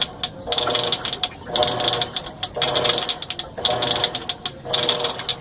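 Washing machine in its agitate phase, the agitator reversing about once a second; each stroke brings a whine with rapid clicking, the abnormal noise in agitation that the machine is being filmed for.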